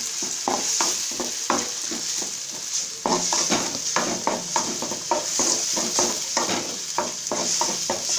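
Metal spoon stirring and scraping ground masala paste as it fries in oil in a metal kadai: quick repeated scraping strokes over a steady sizzle. The paste is being sautéed until its raw smell goes.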